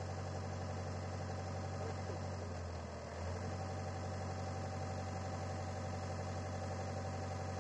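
Hitachi excavator's diesel engine running steadily, heard from inside the operator's cab, with a brief shift in its low hum about three seconds in.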